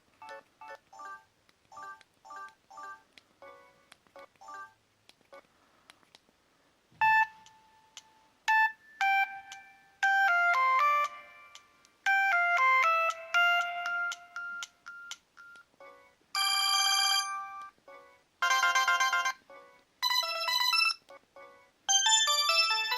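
Preloaded ringtones of a Samsung Galaxy J7 (SM-J700) phone playing one after another: short electronic melodies. The first few seconds are soft, short notes and the later tunes are louder; each stops abruptly after a few seconds as the next one starts.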